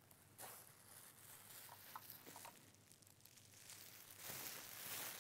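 Sheet of plastic bubble wrap rustling and crinkling as it is pulled away and handled, faint at first and louder near the end.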